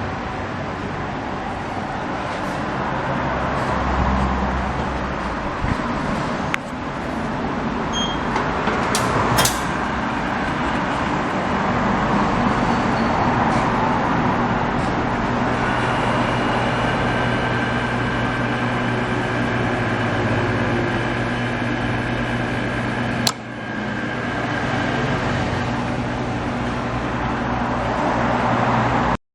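Hyundai Porter 2 truck engine running steadily at idle, with a couple of sharp clicks, one near the middle and one about three-quarters of the way through.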